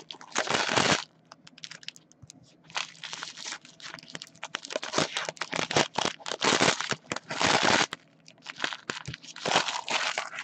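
Trading card pack wrappers from 2017 Panini Donruss Elite Football crinkling and tearing in bursts as the packs are opened by hand. Short light clicks fall between the bursts.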